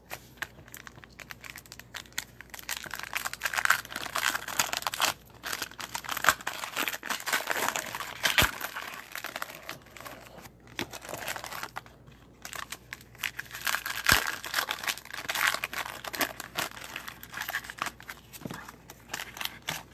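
Foil wrappers of trading-card packs being torn open and crinkled by hand, in irregular bursts, with two sharp clicks about six seconds apart.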